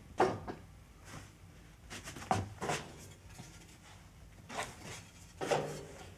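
Scattered knocks and clunks of a person moving about a small wooden room and handling things, about seven separate bumps, the loudest near the start and about five and a half seconds in.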